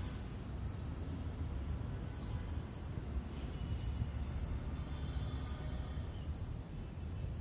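A steady low rumble with a small bird chirping repeatedly over it: short, high, falling notes about every half second.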